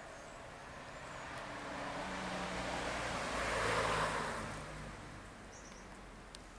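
A car passing by, its engine and tyre noise swelling up over a few seconds, loudest about four seconds in, then fading away.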